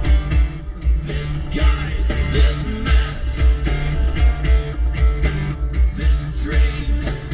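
Rock song with singing and guitar over a steady beat.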